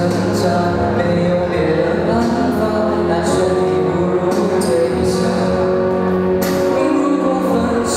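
Male singer singing into a handheld microphone over a recorded backing track with a steady cymbal beat, amplified through a PA.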